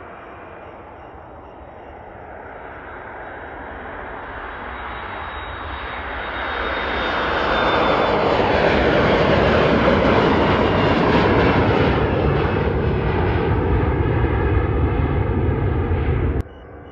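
Twin-engine jet airliner's engines at takeoff power, building steadily as it rolls down the runway and lifts off, loudest in the middle, with a thin high engine whine in the build-up. The sound cuts off abruptly just before the end.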